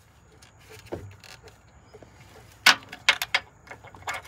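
Metal hand tools clinking and knocking against engine parts. One loud clink comes a little past halfway, followed by a quick run of smaller clicks and another just before the end.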